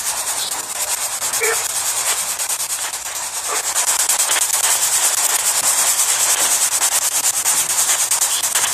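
Radio static from a spirit box sweeping through stations: a loud, steady hiss with a fast, even flutter, played while it is listened to for an answer to a question.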